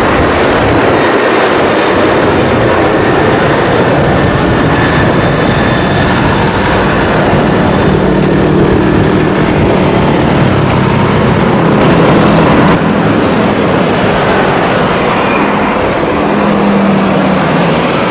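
Bell 412 military helicopter flying past: the rapid beat of its four-bladed main rotor over the hiss of its turbine engines, loud and steady.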